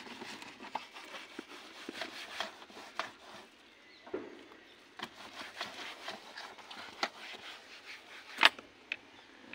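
Light clicks, taps and rubbing as a car's dashboard and controls are wiped by hand, with one sharper knock near the end.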